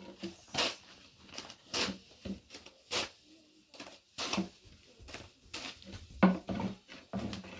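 Long thin wooden rolling pins knocking and tapping on round wooden boards as flatbread dough is rolled out thin and flipped over the pin: a run of irregular knocks, two or three a second.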